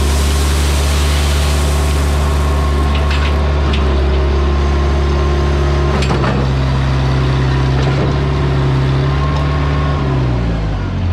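Bobcat 843 skid steer loader engine running steadily at working speed, with a few sharp knocks partway through, then slowing with a falling pitch near the end.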